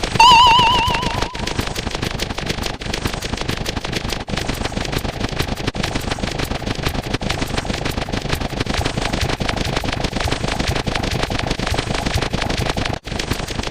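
A sound effect: a brief warbling, trilling tone, then a long run of rapid crackling pops that stops abruptly near the end.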